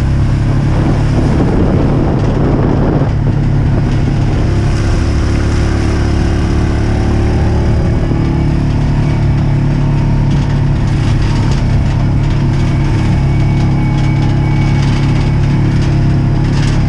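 A farm vehicle's engine running steadily at a constant speed, loud and close, with a rougher, noisier stretch about one to three seconds in.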